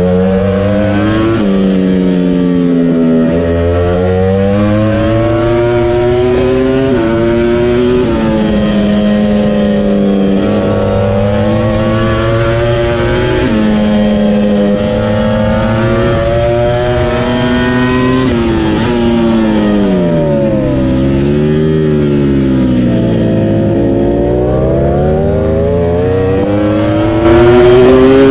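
Ducati Panigale V4 R's 998 cc V4 engine at full throttle on a race track, heard from on board: the pitch climbs steadily and drops at each upshift, over and over, with a deeper dip and climb out of a slower corner about two-thirds of the way through.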